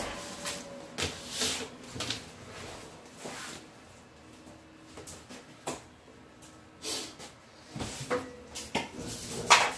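Scattered knocks, taps and rubs of kitchen handling: a ball of dough being lifted off a metal pizza pan and set down on a granite countertop. The sharpest knock comes near the end.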